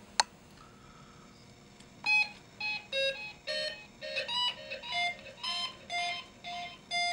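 Snap Circuits Sound electronic keyboard playing a run of short beeping notes at changing pitches, about two a second, fed through the echo module set to high echo. A single sharp click comes just after the start, and the notes begin about two seconds in.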